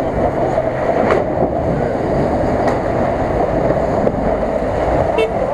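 Lada Niva driving through shallow icy river water: its engine running under a steady rush of splashing water.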